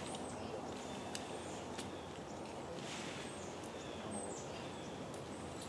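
Faint outdoor ambience over a steady low background noise, with small birds giving short, high chirps several times and a few light clicks.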